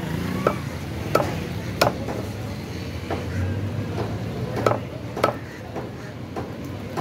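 Meat cleaver chopping raw chicken on a wooden chopping block: a string of sharp chops at uneven intervals, the loudest about a second, two seconds and five seconds in.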